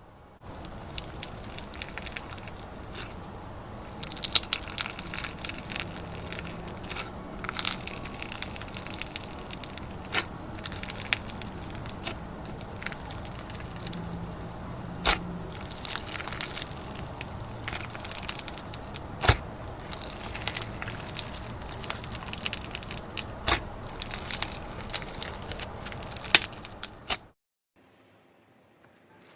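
Slime being squeezed and worked by hand, making many sharp crackling pops and clicks over a steady hiss. It stops abruptly near the end.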